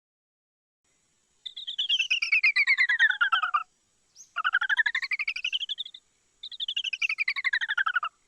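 A pulsing, chirpy electronic sound effect that sweeps in pitch three times: down, then up, then down again, each pass about two seconds long with short gaps between.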